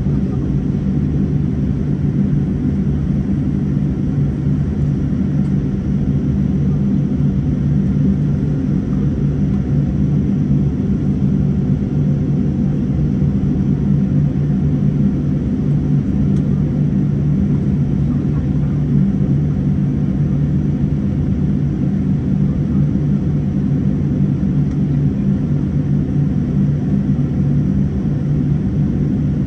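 Inside the cabin of a Boeing 787-9 airliner while taxiing: the engines at low thrust and the cabin systems make a steady low rumble with a constant low hum, unchanging throughout.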